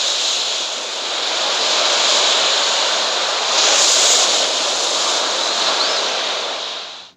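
Storm sound effect: a steady rush of wind and heavy rain that swells about four seconds in, then fades out just before the end.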